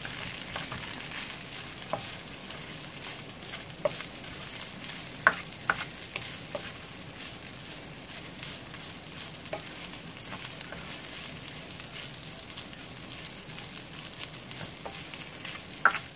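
Frozen cooked rice sizzling in garlic butter in a non-stick frying pan over high heat, stirred with a spatula, with a steady hiss and scattered sharp taps of the spatula on the pan, the loudest about five seconds in.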